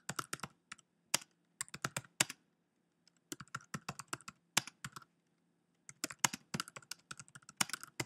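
Typing on a computer keyboard: quick runs of keystrokes, broken by two pauses of about a second.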